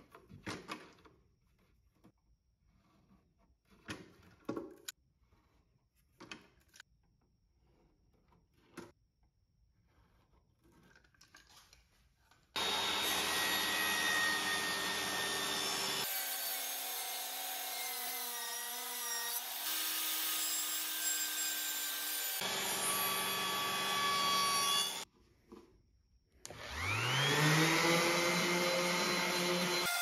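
Faint taps and clicks of a pencil and a plastic marking jig on wood. About twelve seconds in, a table saw runs loud and steady as it cuts through the pine box, with several abrupt jumps in the sound. Near the end, a random orbit sander's motor starts with a rising whine and settles into a steady high whine.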